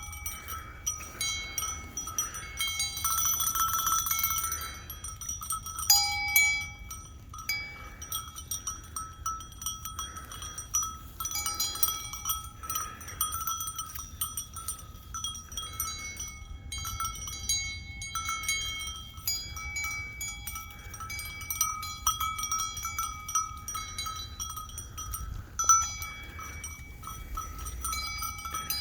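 Metal bells ringing and clanking at irregular intervals at a few fixed pitches, with sheep calling now and then.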